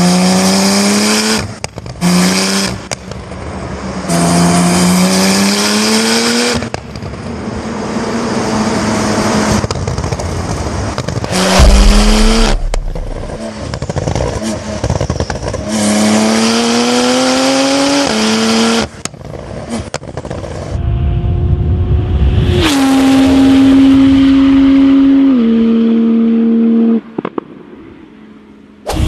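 Porsche sports car engine through an aftermarket exhaust, accelerating hard several times: each pull is a rising note that cuts off sharply at a gear change. Later the revs hold steady, then step down.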